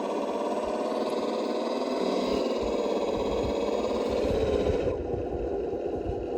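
Electric motor and geared drivetrain of an RC rock crawler whining steadily as it drives, the pitch drifting slightly with throttle; the higher part of the sound drops away about five seconds in.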